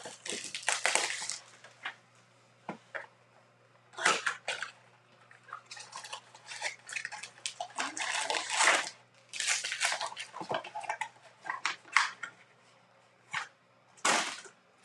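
A cardboard retail box of baseball card packs being opened and the foil packs handled: irregular rustling, crinkling and scraping of cardboard and wrappers in short spells with brief pauses between.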